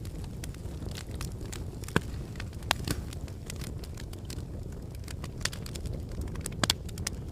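Wood fire burning in a fireplace: a steady low rumble of flames with irregular crackles and sharp pops of the logs, the loudest pops about two seconds in and near the end.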